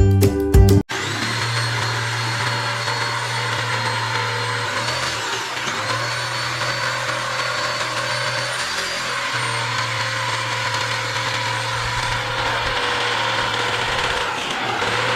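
Total 750 W electric reciprocating saw running steadily with a motor whine, likely cutting wood, after background music cuts off about a second in. The sound dips briefly around five and a half seconds and again around nine seconds.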